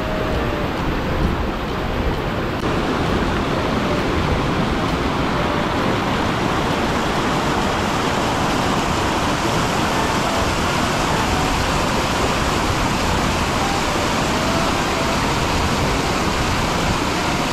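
A small waterfall and mountain stream rushing down a sloping rock bed: a steady rush of water.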